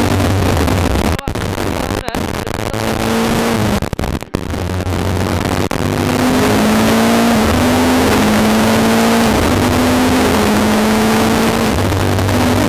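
Rally car engine heard from inside the cabin at full stage pace, revving up and dropping back repeatedly as the driver accelerates and shifts through the gears. The audio cuts out briefly a few times in the first four seconds.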